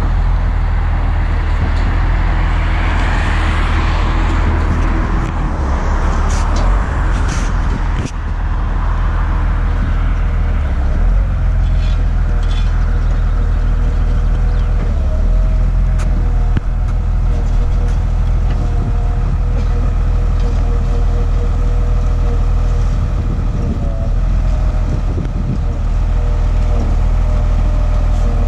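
Volvo motor grader's diesel engine running steadily with a deep drone and a faint whine over it, as the machine grades gravel. A rushing hiss sits over it for the first several seconds, then fades.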